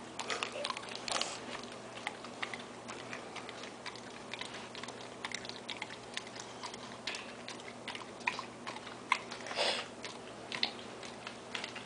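Pit bull smacking and licking a mouthful of peanut butter: irregular wet mouth clicks and chewing, with one short louder puff of breath near the end.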